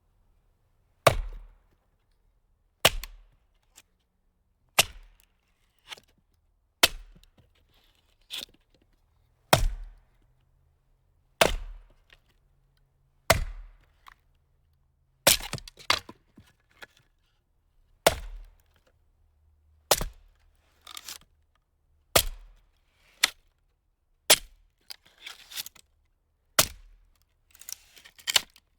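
Firewood being split: a steady series of sharp, cracking blows about every two seconds, each dying away quickly, with smaller knocks between them and some crackling of splitting wood near the end.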